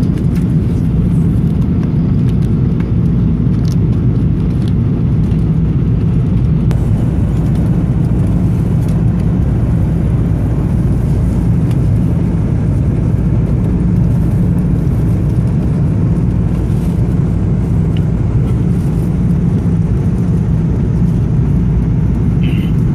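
Airliner cabin noise in flight: the steady low rumble of the engines and the airflow, with a few faint clicks over it.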